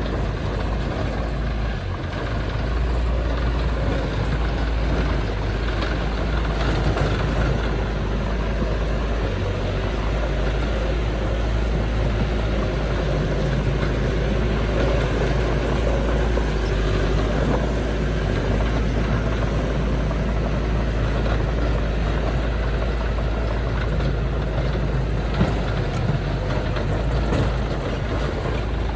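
Heavy earthmoving machinery's diesel engine running steadily, an even low rumble.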